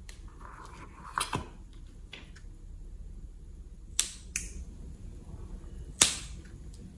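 Sharp clicks and snaps of a pin-like tool working at the rubber neck of a liquid-filled balloon: two close together about a second in, two more around four seconds, and the loudest single snap about six seconds in.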